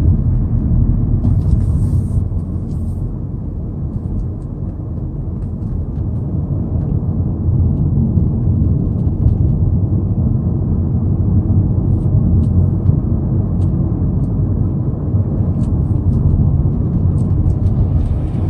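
Hyundai Sonata Brilliant heard from inside the cabin as it gets onto the expressway: a steady low rumble of engine and road noise, easing slightly about four seconds in and then building back up.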